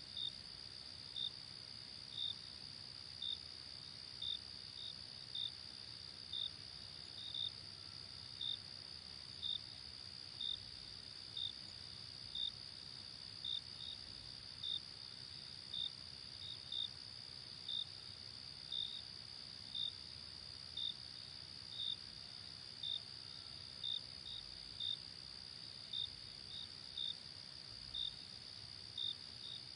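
Crickets chirping: a steady high-pitched trill, with separate short chirps repeating evenly about once a second.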